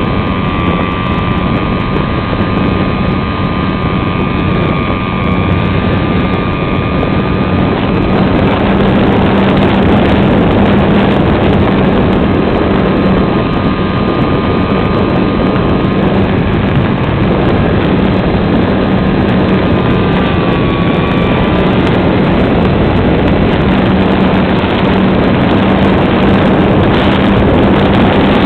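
Onboard sound of an electric-converted RC SIG Riser model plane in flight: a steady rush of wind and propeller noise on the plane-mounted camera, with a thin electric motor whine that fades out for a few seconds, returns, and dips briefly in pitch about 21 seconds in.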